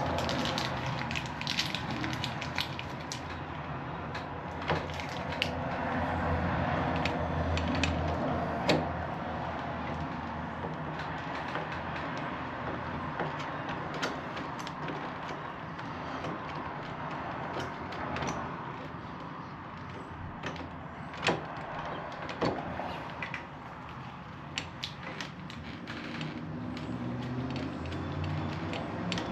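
Scattered clicks and knocks of deadbolt hardware being handled and fitted at a wooden door, over a steady low rumble of background noise.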